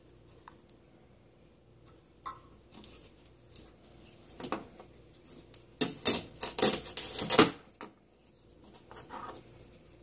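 Plastic toy food pieces clicking and tapping as they are handled. A little past halfway comes a rasping rip of about a second and a half, the hook-and-loop fastener of a velcro toy banana tearing apart as a plastic toy knife cuts it, with a softer rasp near the end.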